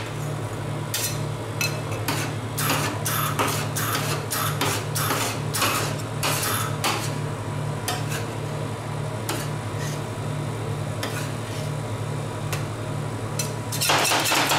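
Metal spatulas chopping and scraping ice cream mix on a frozen metal plate: irregular sharp clacks, a few a second, faster and louder near the end, over a steady low hum.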